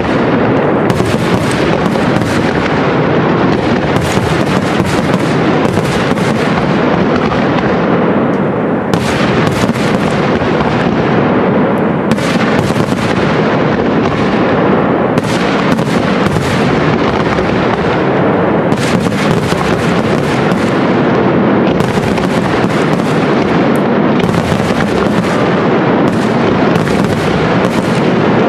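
Aerial firework shells bursting in a dense, continuous barrage, many bangs overlapping with no break between them.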